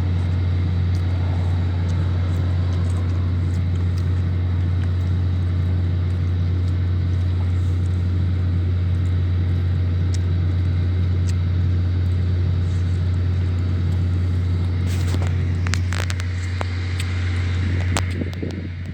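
Steady low machinery hum, like a running engine or generator. A scatter of sharp clicks and knocks comes in over it during the last few seconds.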